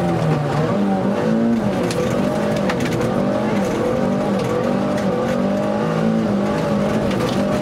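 Opel Corsa rally car's engine heard from inside the cabin, revving up and dropping back over and over as the driver works the throttle and gears on a dirt stage, with a few sharp clicks.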